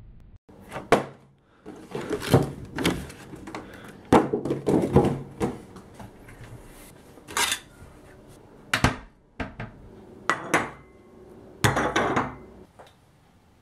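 Kitchen clatter of dishes and cupboards: a string of irregular knocks, clinks and scrapes as a plate is handled and set down on a wooden table. The loudest knocks come about two seconds in, around four to five seconds in, and again near the end.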